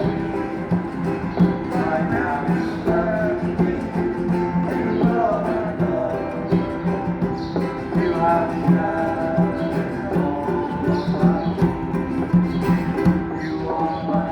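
Busking band playing an instrumental passage: a steady bass line with a moving melody on top and regular percussive clicks.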